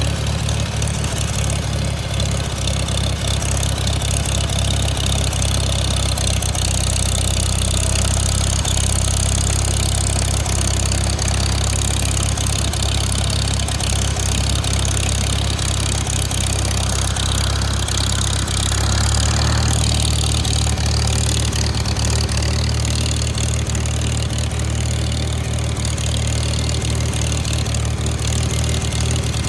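1953 Farmall Super M tractor's four-cylinder engine running steadily as the tractor drives, its note shifting slightly about two-thirds of the way through.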